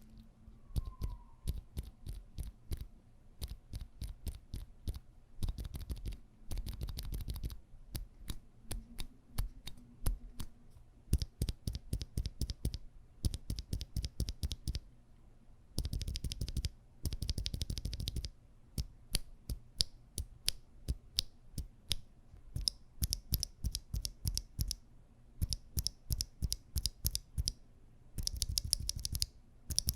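Typing on an Akko ACR Top 40 mechanical keyboard fitted with stock FEKER Aphonia silent switches: soft, muted keystrokes in quick bursts with short pauses between them.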